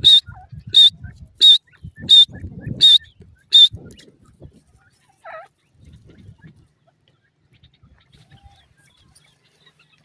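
Grey francolin calling: six loud, sharp, high-pitched notes evenly spaced about two-thirds of a second apart, then a single short falling call a couple of seconds later.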